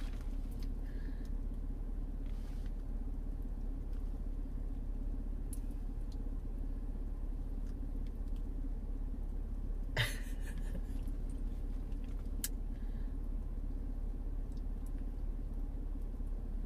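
Steady low rumble inside a car's cabin, with a sharp click about ten seconds in and a fainter one a couple of seconds later.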